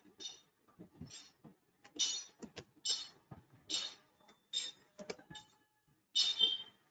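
Computer keyboard being typed on: a run of separate key clicks at an uneven pace, with a quicker cluster near the end.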